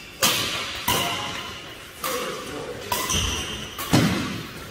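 Badminton rackets striking a shuttlecock in a doubles rally: five sharp strikes about a second apart, each ringing out in a large hall, with a low thud of footwork a little past the middle.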